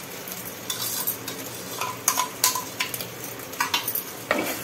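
Masala paste frying and sizzling in hot oil in a clay pot, while a spoon and a wooden spatula scrape and knock against the pot as it is stirred in, several sharp taps through a steady hiss.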